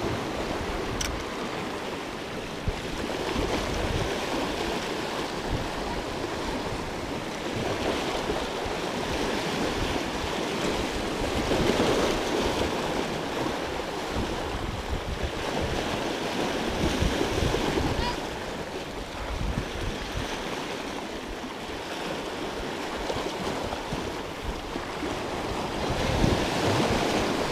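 Sea waves washing in and breaking over shoreline rocks, the surge swelling and easing every few seconds, with wind buffeting the microphone.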